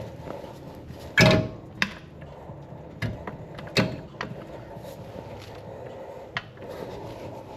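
Metal knocks and clunks of a front CV axle being lifted and worked into place. The loudest, longest clunk comes about a second in, with a sharper knock near four seconds.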